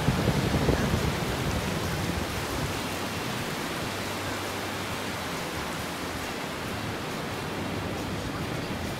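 Steady rushing of ocean surf and wind at the water's edge, rougher and louder in the low end for the first couple of seconds, then even.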